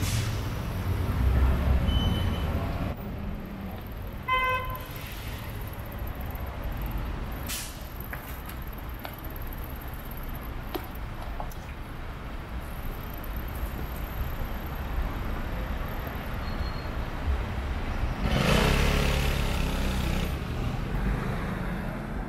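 City street traffic: cars and vans running past at a junction as a steady low rumble. A short horn toot comes about four seconds in, and a vehicle passes close and louder near the end.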